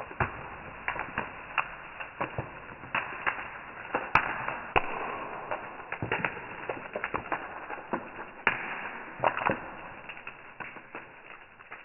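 Plastic wrapper of an Oreo biscuit packet crinkling as a hand squeezes and handles it: irregular sharp crackles over a soft rustle.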